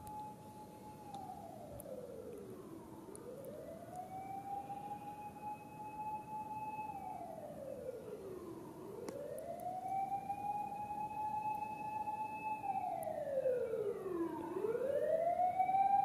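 A siren wailing in slow cycles: it rises, holds a high note for two to three seconds, then falls, about every six seconds. It grows louder toward the end.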